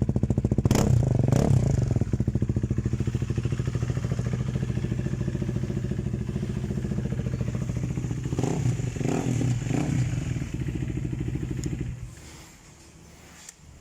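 KTM 250 Duke's single-cylinder engine idling with a steady rapid pulse, with a few brief sharper sounds about a second in and again around the middle. The engine sound stops about twelve seconds in.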